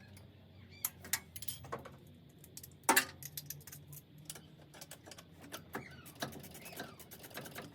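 Small metal tools and parts clinking and clattering as they are handled and set down, with one louder metallic clank about three seconds in.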